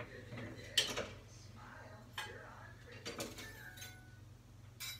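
Kitchenware clinking and knocking as it is handled: four or five sharp clinks, the loudest about a second in, with short ringing after them.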